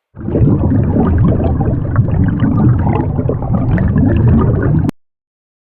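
Loud water gurgling and bubbling, as of a ship going under, for about five seconds, then cutting off abruptly.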